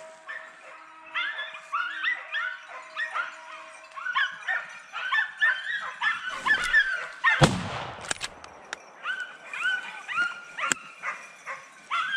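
Hunting hounds baying over and over, several yelps a second, the pack giving tongue as it works a wild boar drive. A single dull thump breaks in about seven seconds in.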